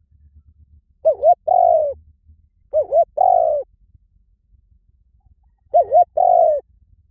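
Spotted dove cooing: three phrases, each two short coos followed by a longer coo that falls away at the end.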